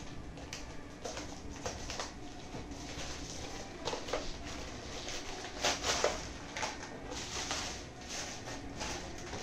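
Plastic courier mailer being cut open with a utility knife and pulled apart: irregular crinkling and rustling of the plastic, with a few sharper crackles about four and six seconds in.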